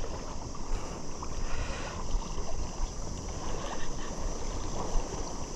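Outdoor ambience of wind rumbling on the microphone and small waves lapping at the shore, with a steady high insect drone.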